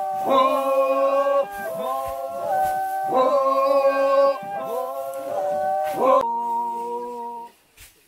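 A group of voices singing a chant together in phrases about a second long, with glides between held notes. About six seconds in the sound cuts abruptly to a different, steadier held chord.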